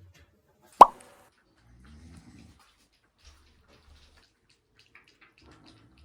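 A single sharp, loud pop about a second in, then cats eating tuna with soft wet mouth clicks, and a man snoring faintly in short low rumbles.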